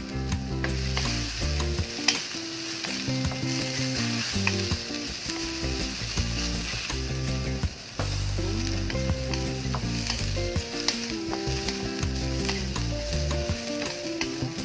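Sliced onions sizzling in olive oil in a metal wok, stirred with a wooden spatula that scrapes and taps against the pan now and then. A low tune of held notes plays underneath.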